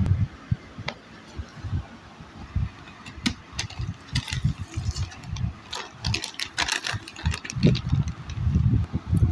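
Rustling of notebooks and plastic packaging being handled, most dense in the middle stretch, over irregular low thumps and rumble from hands knocking against the phone's microphone.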